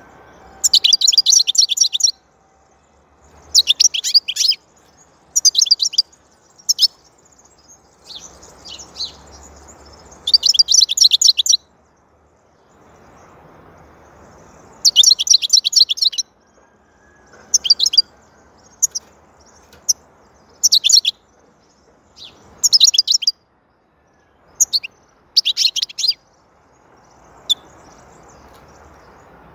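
European goldfinch singing: fast, twittering phrases of a second or so each, repeated many times with short pauses between.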